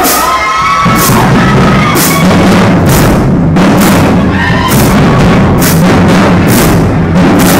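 Marching band drumline playing: bass drums and snare drums with crash cymbals striking about once a second. The drums come in about a second in.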